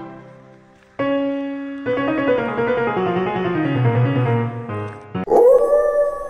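Background music with piano-like notes and a bass line stepping downward. About five seconds in, a loud long held note comes in.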